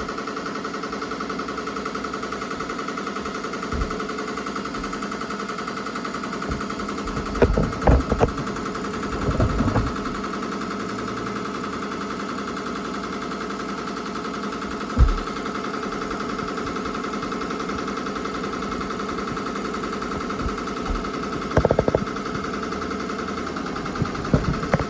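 Ricoma MT-2002-8S multi-needle embroidery machine stitching through a terry kitchen towel: a fast, even mechanical clatter of the needle with a steady whine underneath. A few louder knocks come through about eight, ten and fifteen seconds in and again near the end.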